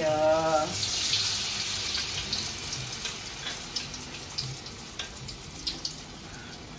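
Water running from a tap into a sink, an even hiss that slowly fades, with a few faint clicks.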